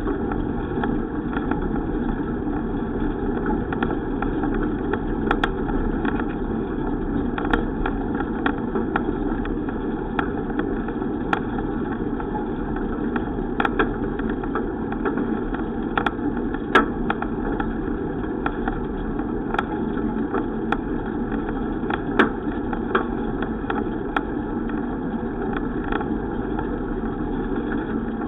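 Steady road and wind noise from a moving bicycle ride, with scattered sharp clicks and rattles.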